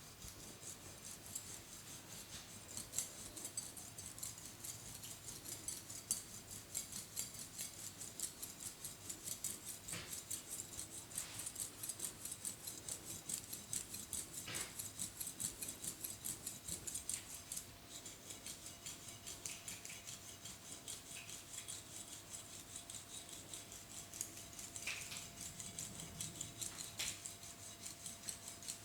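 A head massager rubbed through hair over the scalp, making a fast, dense crackly rustling and scratching of hair, with a few sharper scrapes now and then.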